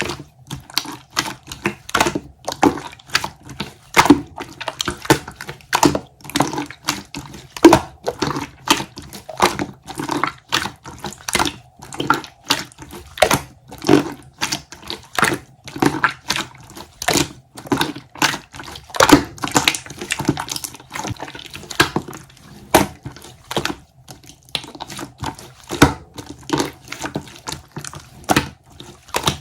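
Mint-marbled clear slime being squeezed and poked by hand, giving a steady run of wet clicks and pops, several a second.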